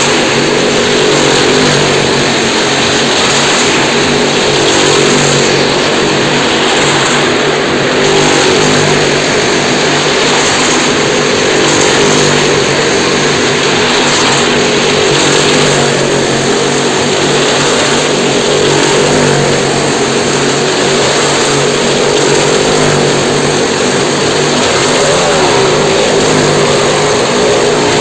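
Engines of motorcycles and a car running hard as they circle the vertical plank wall of a Well of Death drum, a loud, steady drone throughout.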